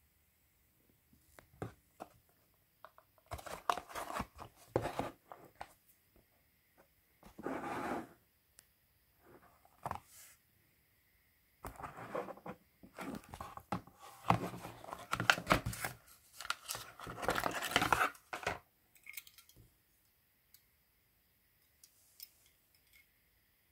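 Hot Wheels cardboard blister card and its plastic bubble being torn open by hand, in irregular bursts of ripping and crinkling, with the longest run in the second half.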